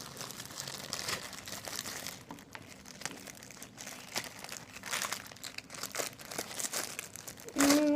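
Gooey slime being pulled out of its container and handled, making irregular small sticky clicks and crackles.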